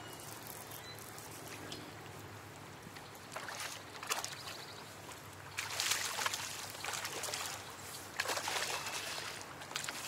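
Faint river water, then from about halfway in, repeated splashing as a hooked fish thrashes at the surface beside the kayak.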